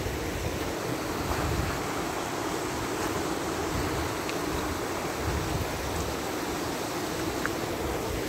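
Steady rush of a rocky mountain creek running over rapids, with wind buffeting the microphone in uneven low gusts.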